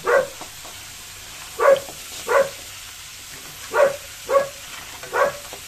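A dog barking: six short barks, mostly in pairs about a second and a half apart.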